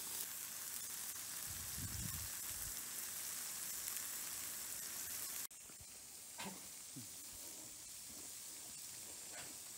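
Thick-cut bacon sizzling steadily on a hot flat-top griddle. About five and a half seconds in the sizzle cuts off suddenly, leaving a quieter background with a few faint short sounds.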